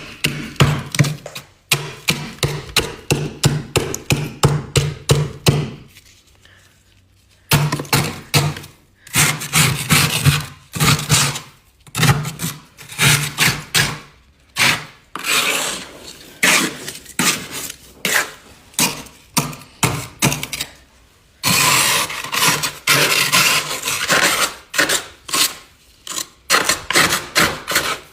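Freezer frost being scraped and crunched close to the microphone in quick, rhythmic rasping strokes. There is a short pause about six seconds in and a longer unbroken rasp a little past twenty seconds in.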